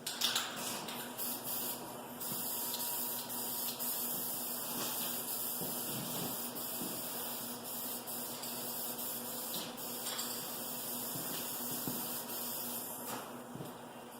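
Guide coat being sprayed over sanded primer: a steady spray hiss in long passes with short breaks between them. A short sharp sound comes right at the start.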